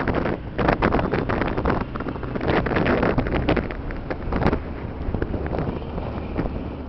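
Wind buffeting the microphone in irregular gusts over a low rumble, easing off near the end.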